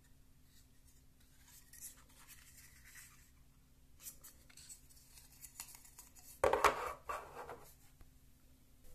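Plastic rubbing, scraping and small clicks from a GoPro Shorty mini extension pole being handled and its tripod legs opened, with a louder clatter of several quick knocks about six and a half seconds in.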